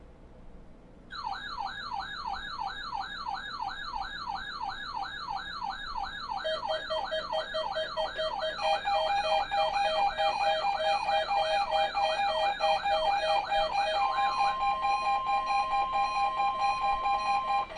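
Several electronic emergency alert tones sounding together. A fast warbling siren-like alarm starts about a second in, pulsing beeps join it, and a single steady tone takes over near the end before all of them cut off.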